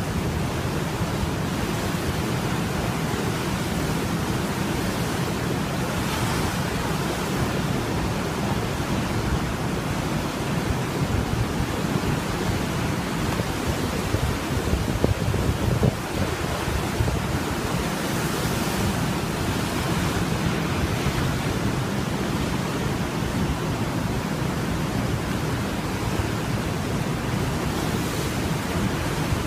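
Heavy ocean surf: big waves breaking and white water rushing over and through a seaside ocean pool in a steady, dense wash of noise, swelling slightly about halfway through. Wind rumbles on the microphone underneath.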